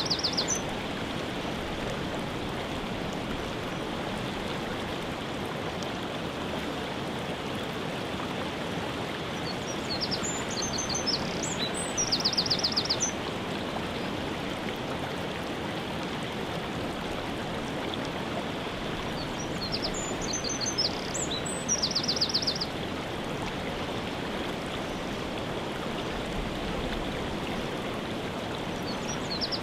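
A waterfall rushing steadily, with a songbird singing high above it: a short phrase ending in a fast trill, twice in the middle about ten seconds apart.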